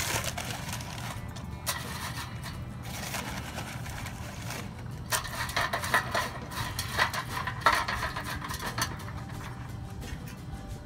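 Dry alder wood chips poured from a paper bag into a metal smoker chip tray, then stirred by hand, rattling and scraping against the tray, with a steady low hum underneath.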